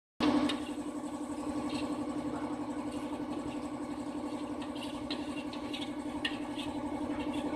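A motor running steadily with an even, unchanging hum, with a few light clicks over it.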